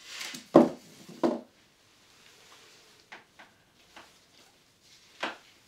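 Hard pieces of a polystone display base handled on a tabletop: a short rustle, two loud knocks about a second in, a few light clicks, then another knock near the end.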